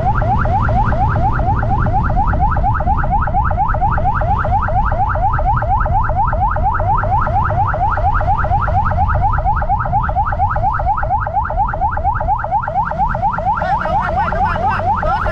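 Electronic siren sounding a fast yelp: short rising sweeps repeated several times a second without a break, over the low rumble of a moving motorcycle and wind. Near the end a second, higher warbling tone joins in.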